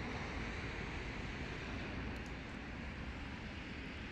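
Steady wind noise on the microphone over a constant outdoor hiss.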